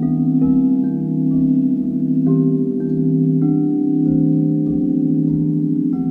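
Large frosted quartz crystal singing bowls sounding together: several low tones sustain and pulse slowly. Fresh, higher notes ring in about every half second to second.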